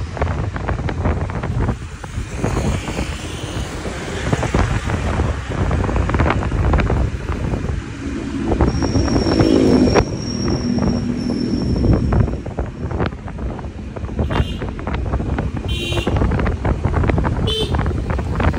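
Vehicle driving on a road, with wind buffeting the microphone over a steady rumble of road noise. A short pitched sound rises out of the noise about eight to ten seconds in.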